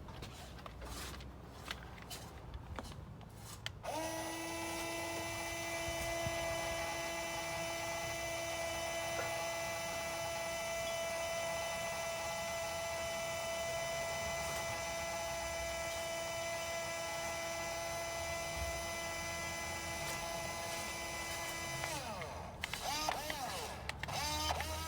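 Small electric gear motor of a Huina 1574 RC crane whining at a steady pitch. It starts suddenly about four seconds in, runs for about eighteen seconds and cuts off. A few short whines that rise and fall in pitch follow near the end as the motors are briefly run again.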